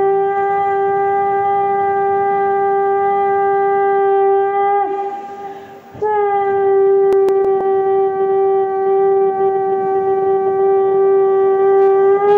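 Conch shell (shankha) blown in long, steady blasts on one pitch. The first blast tails off about five seconds in, and a second begins about a second later, starting slightly sharp and settling.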